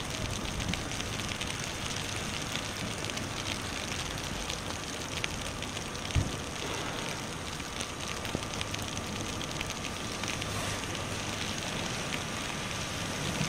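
Steady rain falling, with many small raindrop ticks close by and a single dull thump about six seconds in.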